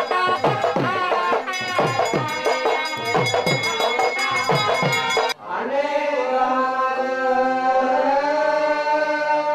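Devotional temple music: a hand drum plays quick strokes whose pitch drops, over held melody notes. About five seconds in, it cuts off abruptly and gives way to chanting voices holding long notes.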